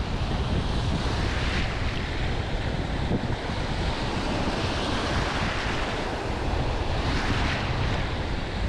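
Small sea waves breaking and washing in the shallows, a hiss that swells and fades every second or two, over a steady rumble of wind buffeting the microphone.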